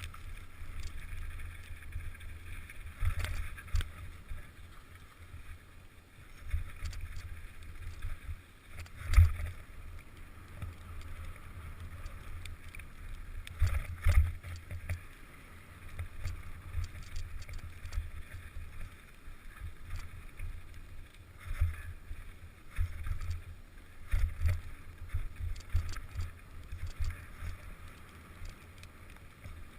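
Mountain bike riding a dirt trail: wind buffeting the camera microphone with a steady low rumble, jolted by bumps about every few seconds, the hardest about nine seconds in.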